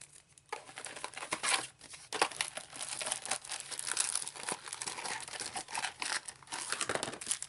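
Foil trading-card booster packs being torn open and crinkled: a dense run of crackling wrapper noise that begins about half a second in.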